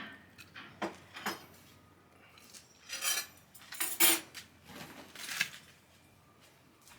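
Dishes and cutlery clinking and scraping: a handful of separate short knocks and scrapes, the loudest a little past the middle.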